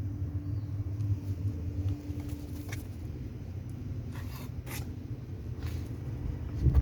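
A low, steady rumble with a hum that stops about three seconds in, a few light clicks, and a loud thump near the end.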